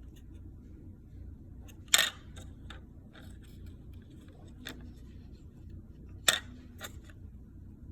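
Scattered clicks and taps of small hard objects being handled, with two sharp, much louder clicks about two seconds and six seconds in, over a low steady hum.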